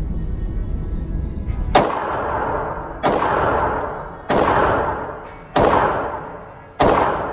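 Diamondback DB380 .380 pocket pistol firing five shots at a steady pace, about one and a quarter seconds apart, each crack followed by about a second of echoing decay. A low rumble runs under the first couple of seconds, before the first shot.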